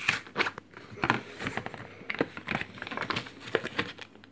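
Plastic and card packaging being worked open by hand, with irregular crinkling and crackling as it is bent and pried.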